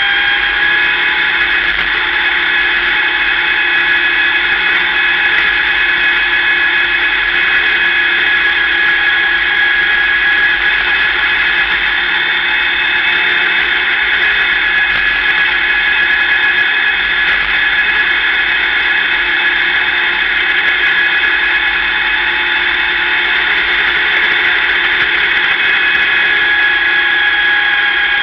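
Dirt-track sportsman modified race car running at a steady slow pace, its drivetrain giving a loud, steady high-pitched whine heard from inside the cockpit. The pitch rises slightly about a second in and eases off near the end.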